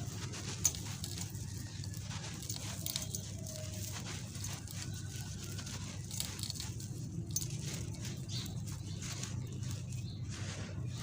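Dry sand-cement pieces being crumbled and crushed: a continuous gritty crunching and crackling made of many small cracks, with a steady low hum underneath.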